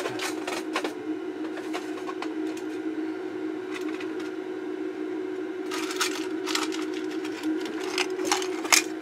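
Scattered light clicks and rattles of small parts being handled on a workbench, coming thicker in the last few seconds, over a steady hum.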